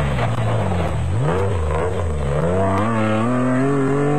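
Nissan Hardbody off-road race pickup's engine revving hard at speed: a brief drop and rise in pitch about a second in, then the engine note climbs steadily as it accelerates.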